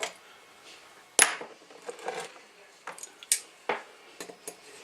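A screwdriver and small metal screws clicking and clinking irregularly as screws are backed out of a ham radio transceiver's case, the sharpest click about a second in.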